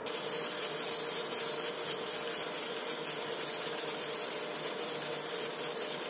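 Sodaeng pressure cooker venting steam through its turning pressure weight: a steady loud hiss with a low hum under it, the sign that the pot has come up to full pressure.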